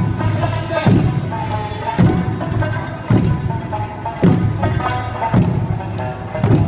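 Okinawan eisa drummers striking large barrel drums (ōdaiko) in unison, about one beat a second, over Okinawan eisa music.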